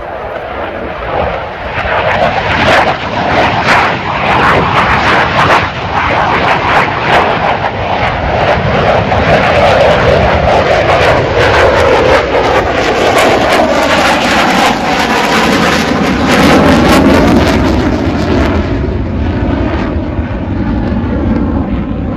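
F-16 fighter jet's afterburning turbofan flying past and climbing away, the jet noise building to a loud, crackling roar and wavering with sweeping tones as the aircraft moves off.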